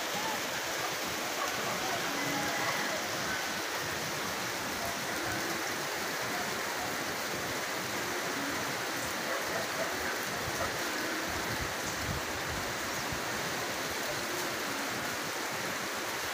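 Steady, even rush of water: a fast-flowing, typhoon-swollen river in flood, with rain.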